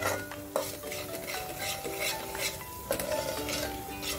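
A ladle stirring and scraping thick masala paste frying in an aluminium pot, about two scrapes a second against the pot, over a light sizzle. The masala is being fried until the oil separates.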